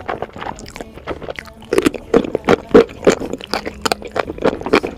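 A person eating: slurping and wet chewing of saucy noodles, a fast run of short sharp mouth clicks, then a bite of kimchi near the end.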